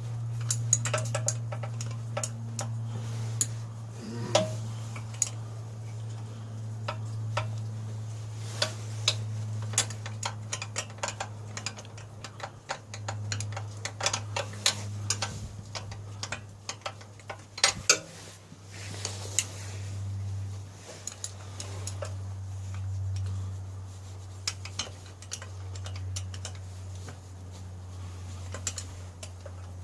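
Irregular metallic clicks and taps of hand tools working on the pocket bike's parts, over a steady low hum.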